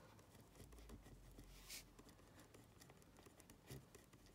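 Faint scratching of a pen writing on paper, with one louder stroke about one and a half seconds in.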